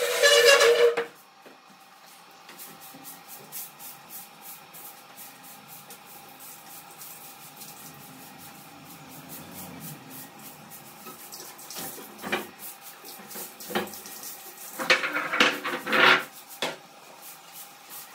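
A voice cuts off within the first second. Then comes a broom sweeping a concrete floor in quick, regular scratchy strokes, followed by a few sharp knocks and a louder clatter near the end as furniture is moved.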